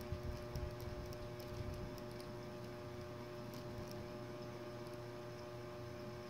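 A steady electrical hum with a couple of faint held tones, a few soft low bumps in the first two seconds and scattered faint ticks.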